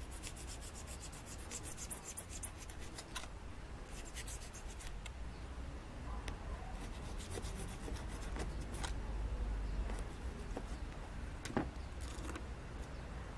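Hobby knife cutting and scraping through styrofoam wing along a ruler: a run of short, scratchy strokes, thickest in the first few seconds, then coming singly.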